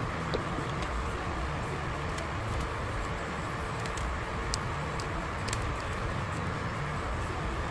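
Tabletop nail dust collector's fan running with a steady whir, with scattered small sharp clicks as nippers pop rhinestones off gel nails.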